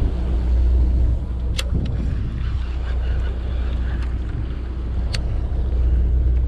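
Sportfishing boat's engine running with a steady low drone, with wind on the microphone. Two sharp clicks, one about a second and a half in and another about five seconds in.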